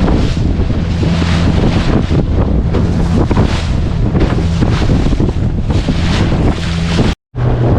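A boat's engine running steadily under heavy wind buffeting on the microphone and the rush of choppy sea water, swelling about once a second. It drops out briefly near the end, and then returns with a different engine note.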